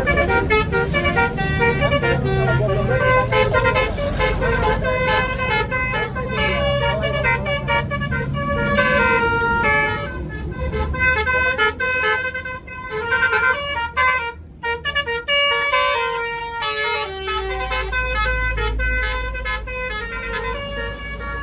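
Indonesian bus 'telolet basuri' multi-tone horn playing a quick tune of stepping notes, over the low rumble of the bus engine. The tune breaks off briefly about fourteen seconds in.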